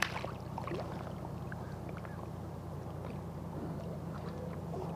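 A small hooked fish splashing and thrashing at the water's surface beside a float tube in the first second, then weaker splashes and drips, over a steady low hum.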